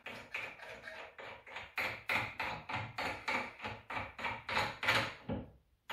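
Quick, even clicking, about four or five clicks a second, as the mini mill's drawbar is turned at the top of the spindle to free the R8 tool holder. It gets louder about two seconds in and stops shortly before the end.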